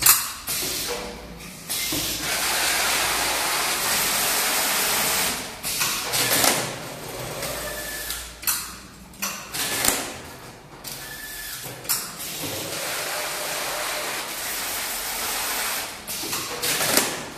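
Combined automatic carton sealer and strapping machine at work. There is a steady run of the sealer's belt drives as a carton is taped, then uneven machine noise broken by a series of sharp clunks as the strapping machine handles the strap around the carton.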